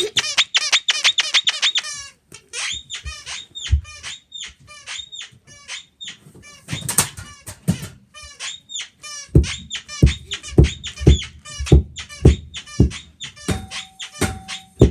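Guinea pig squeaking over and over: a string of short high squeaks that rise and fall, coming quickly at first and then more slowly, with a few low thuds in the second half.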